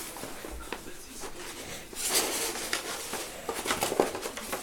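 A ferret playing with a cardboard paper roll on carpet: the paper rustling and the tube scraping, with a cluster of sharp knocks near the end.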